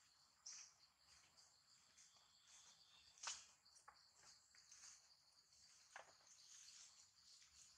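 Faint insect chorus from the forest undergrowth: a steady, high-pitched pulsing chirr. A few brief sharp sounds cut in, about half a second, three and six seconds in, the one near three seconds the loudest.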